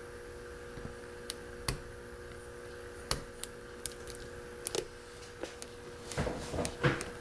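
Small irregular metallic clicks and ticks of a hook pick working the pin stacks of a six-pin mortise lock cylinder under light tension from a tension wrench. Near the end comes a quicker run of louder clicks and scraping.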